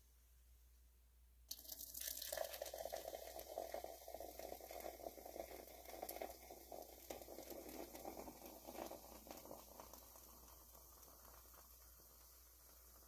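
Mello Yello soda poured from a can into a glass. The stream splashes in about a second and a half in, with a fizzing hiss of carbonation. It eases off after about nine seconds as the pour thins, leaving a faint fizz.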